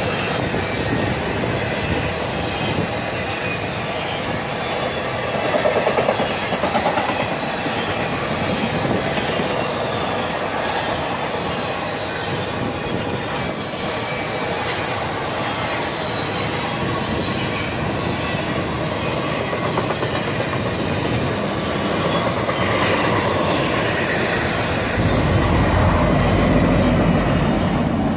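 Union Pacific intermodal freight train's flatcars loaded with trailers and containers rolling past at close range: a steady rumble of steel wheels on rail. The low rumble grows louder in the last few seconds.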